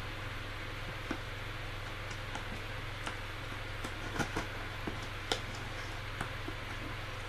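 Scissors snipping and prying at a heavily taped cardboard box: irregular short clicks and cracks, a handful spread over several seconds, over a steady low hum and hiss.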